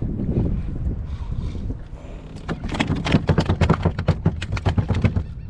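Wind buffeting the microphone on a kayak, a low rumble. About halfway through, a rapid run of sharp knocks and clatter sets in and lasts nearly three seconds.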